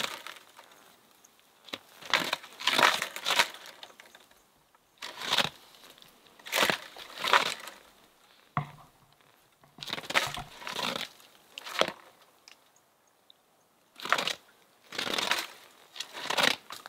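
A stick raked and scraped against a conifer's trunk and dead lower branches: a series of rough, crackling scrapes, some about a second long, with short pauses between. This is the hunter's way of imitating a rutting bull elk thrashing a tree.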